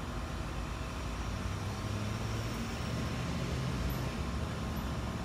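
Steady low background rumble, with a faint low hum that swells between about two and four seconds in.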